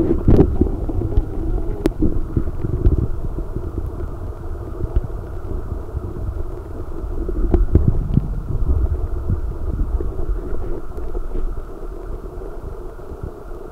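Muffled low rumble of a camera submerged in a shallow pond, heard through its waterproof case, with a few faint knocks from the camera being handled.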